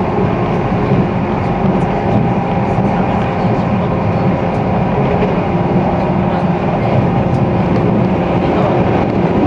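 Running noise of a JR 485-series electric train heard inside the passenger car: a steady rumble of wheels on rail and the running gear, with faint steady tones and small ticks, holding an even level.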